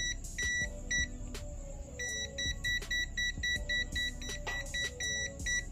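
INGCO DM5702 digital multimeter beeper giving short, high beeps: three spaced beeps, then from about two seconds in a quick run of about five beeps a second, with faint clicks among them.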